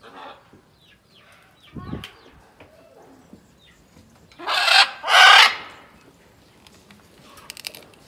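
Two loud, harsh macaw squawks in quick succession, about a second apart, near the middle. A dull thump comes about two seconds in and a quick patter of clicks near the end.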